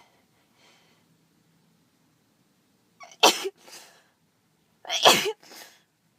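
A person with a heavy head cold sneezing twice, about two seconds apart; each sneeze has a short lead-in, a loud burst and a softer trailing part.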